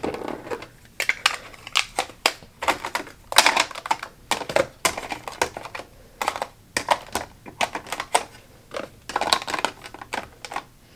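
Hands moving false-eyelash boxes in and around a clear plastic organizer tray in a drawer: irregular light clicks and clacks of plastic and cardboard knocking together.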